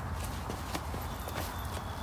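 Wood-burning gasification stove fuelled with pine pellets, burning with a steady low rush and a few scattered sharp crackles, as the fire begins to die down after half an hour.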